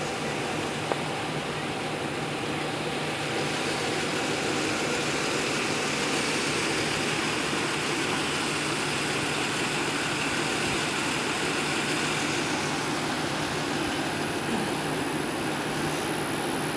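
A motor vehicle's engine running steadily, a constant low hum under an even rushing noise.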